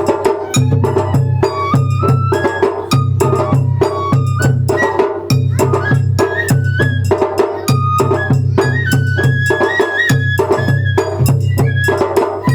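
Japanese festival hayashi music: a high bamboo flute melody moving in steps over steady taiko drum beats and sharp clicking percussion in a regular rhythm.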